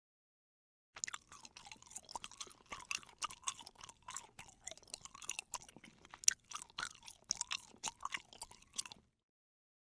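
A person chewing crunchy food: a dense, uneven run of crisp crunches that starts about a second in and stops about eight seconds later.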